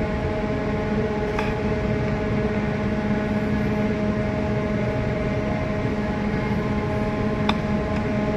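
Steady hum of the Jewel of the Seas cruise ship's machinery as the ship passes close by: a constant mix of noise and several held tones at fixed pitches, with two faint clicks.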